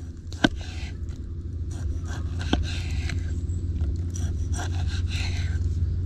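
Knife slicing through a block of pork fat on a wooden cutting board: repeated scraping cutting strokes, with two sharp clicks about half a second and two and a half seconds in. A low steady rumble runs underneath.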